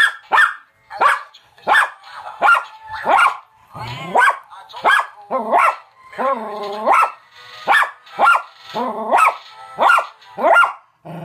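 American Cocker Spaniel barking at a singing animated toy cat: a steady string of sharp, loud barks, about one every 0.7 seconds, with a few longer drawn-out barks mixed in.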